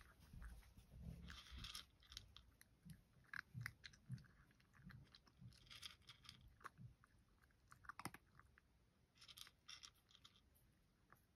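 Cat chewing and crunching dry kibble, faint and irregular, with a few short clusters of crunches about a second and a half in, around six seconds in and near the end.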